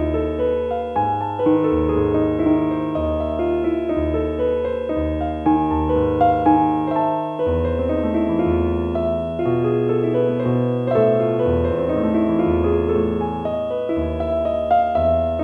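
Relaxing piano music: a stream of soft, sustained notes over low bass notes that change about once a second.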